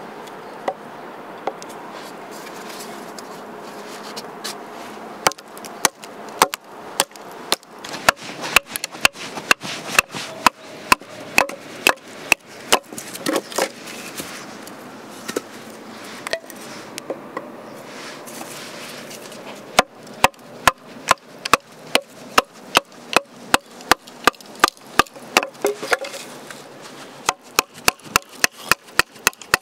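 Repeated chopping strikes on wood, about two to three a second, in three runs separated by short pauses.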